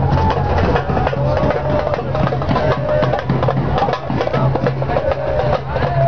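Music with busy percussion and a wavering melody over a steady low bass.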